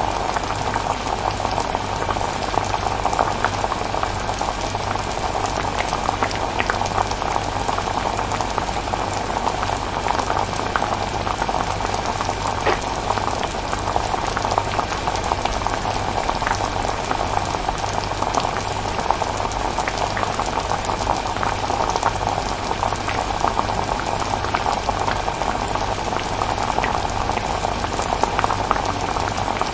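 Chilli bubbling as it cooks: a steady hiss of many small popping bubbles.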